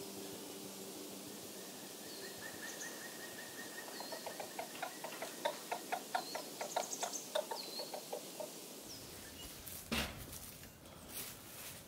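Chickens clucking in a quick series of short clucks, about four a second, with small birds chirping higher up. Near the end there is a thump, then rustling and crunching like steps in dry leaves.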